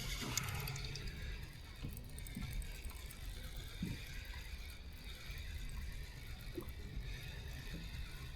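Sea water lapping and splashing gently against a kayak's hull, over a steady low rumble.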